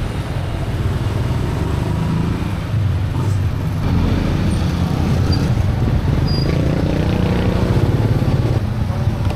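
Small motor scooter engine running under way, a steady low hum whose pitch shifts a few times as the throttle changes.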